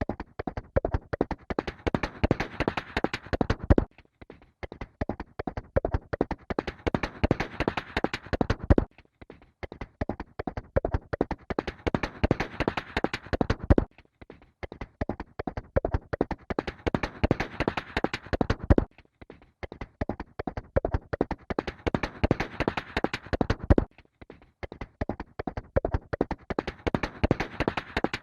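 Horse hooves galloping, a fast run of hoofbeats. It plays as a short recording looped over and over, with a brief break about every five seconds.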